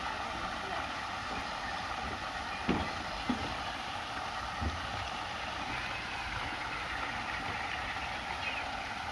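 Steady background noise of a water park, with three brief soft knocks in the first half.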